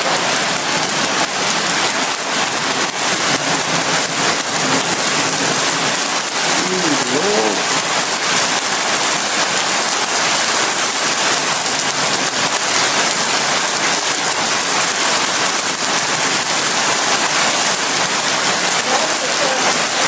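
Heavy rain falling steadily in a downpour: an even, unbroken hiss.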